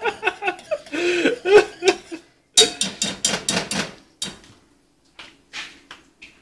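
A man laughing and coughing in short bursts, with a quick run of breathy pulses partway through.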